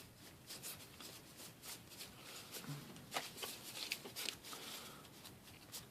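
Trading cards being handled and leafed through by hand: soft, irregular clicks and slides of card on card.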